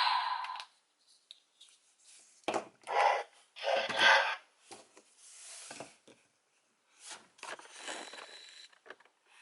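The tail of a toy's electronic sound effect from its small speaker, cutting off under a second in. Then plastic toy pieces are handled: several short rubs, scrapes and clicks.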